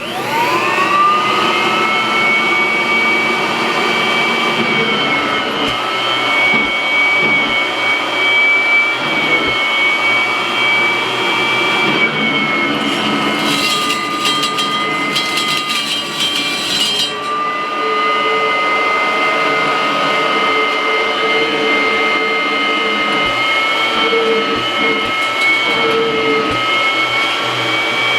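Kirby vacuum cleaner switched on, its motor spinning up with a rising whine and then running steadily with a high whine, with the hose attached and the bag unhooked. Between about 13 and 17 seconds a crackling rattle joins in and the whine dips slightly.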